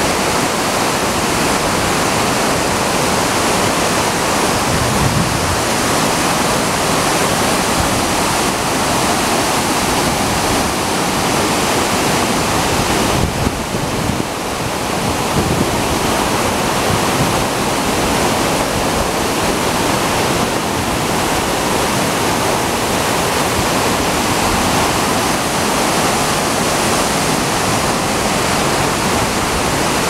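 Waterfall and cascading stream water: a loud, steady rush of falling water, with a brief dip and change in the rush about 13 seconds in.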